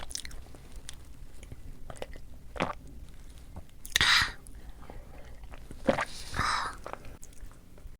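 Close-up eating sounds of a person eating rice and fish: chewing with small mouth clicks, and louder smacking bursts about four and six seconds in.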